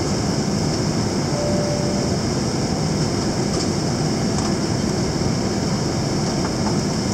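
Steady cabin noise inside a Boeing 787-8 Dreamliner in flight: an even rush of air with the low rumble of the jet engines.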